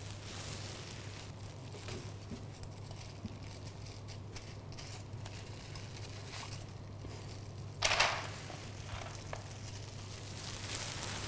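Faint rustling and scuffling of kittens playing on towels and a plastic toy, over a steady low hum. A brief, louder crinkly rustle comes about eight seconds in.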